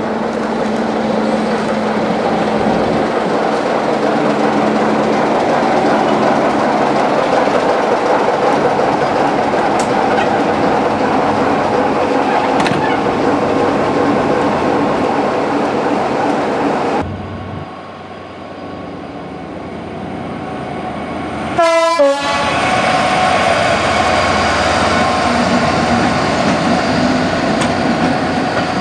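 A BR Class 33 'Crompton' diesel locomotive's Sulzer eight-cylinder engine running as it moves slowly past. Then a diesel-hauled train headed by a GB Railfreight Class 66 approaches, gives one short horn blast about three-quarters of the way through, and its engines run loud as it passes.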